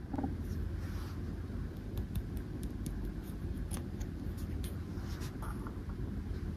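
Small plastic toy chair handled in the fingers and set down on a plastic dollhouse board: light, scattered clicks and taps of hard plastic, over a steady low background noise.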